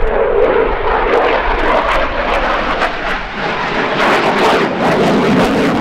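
Eurofighter Typhoon (F-2000A) fighter jet with its twin turbofans in flight during a display, loud steady jet noise with a crackle that thickens from about two seconds in.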